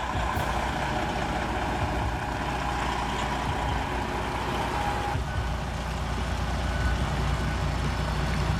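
Heavy machinery running steadily: a deep engine rumble under a mechanical whine, with the sound shifting about five seconds in.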